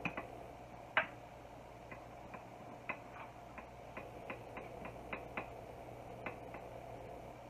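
Spoon clicking and scraping against a bowl while cooked basmati rice is mixed with saffron water: light, irregular taps, the sharpest at the start and about a second in, over a low steady hum.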